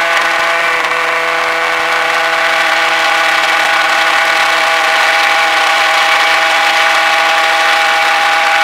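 90 mm pulse jet running steadily on a test stand: a loud, even buzzing drone at a fixed pitch that holds without change.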